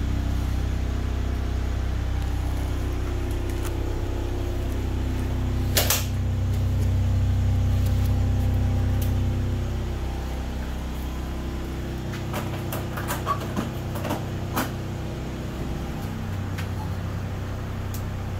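Steady low machine hum from the food truck's equipment. It grows a little louder a few seconds in and drops back about ten seconds in. There is a sharp click about six seconds in and a few light knocks near the end.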